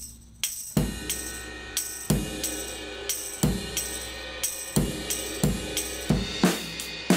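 Looped drum-kit overhead recording playing back through analog-style saturation and compressor plugins: cymbals and hi-hats ticking steadily over a kick-drum hit about every second and a third.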